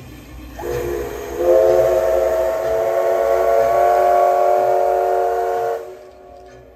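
Steam locomotive whistle (the SL Ginga's C58 steam engine) blown in one long blast. It starts about half a second in, swells to full strength a second later, holds for about four seconds and cuts off sharply. It is very loud.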